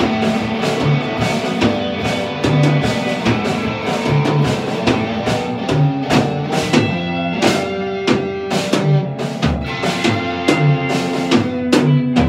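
Live punk–industrial metal instrumental from a rock band: two electric guitars playing over a Gretsch drum kit, with steady bass drum and snare hits driving the beat.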